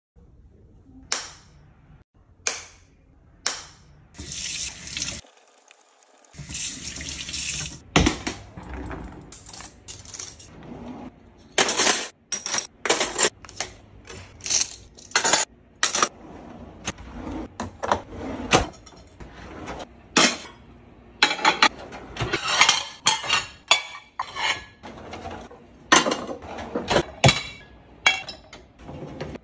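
Dishes and cutlery clinking and clattering in a dishwasher's racks and cutlery basket as they are handled: a string of sharp clinks and knocks, with a few longer rattling stretches.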